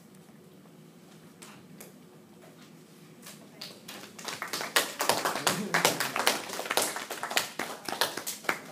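Applause from a small group of people: after a few seconds of quiet with a few faint clicks, irregular hand claps start about halfway through and stop just before the end.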